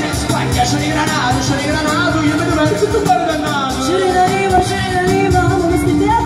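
Live folk band playing, with accordion, saxophone, guitar and a large tambourine over a steady beat.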